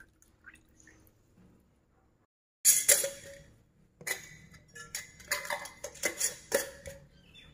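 Metal screw lids clinking and scraping against glass jars as they are set on and twisted closed. A loud clatter comes about two and a half seconds in, then a run of sharp clinks.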